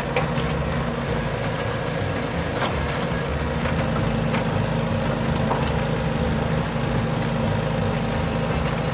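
A steady motor or engine sound running evenly, with a low pulsing hum and a few light clicks.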